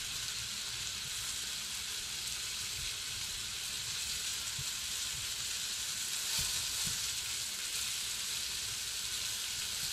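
Pieces of northern pike frying in butter in a skillet: a steady sizzle. A few light taps of a fork against the pan as the pieces are turned.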